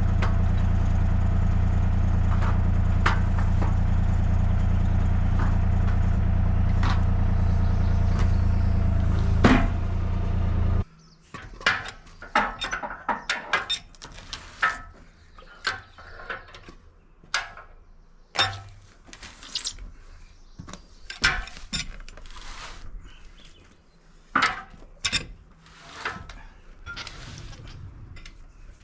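Home-built bandsaw mill running steadily with a strong low hum. About ten seconds in there is one sharp loud hit with a brief falling squeal, and the machine then shuts off abruptly, stopped for a close call with an eye hook and screws buried in the elm log. After that come scattered knocks and clatter.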